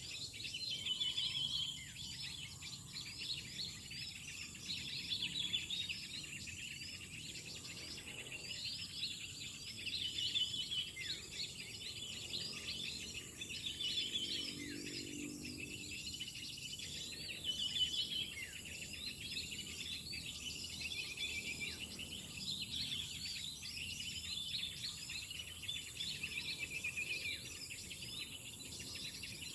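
Many small wild birds chirping and calling together, with short, quick notes and repeated phrases overlapping throughout.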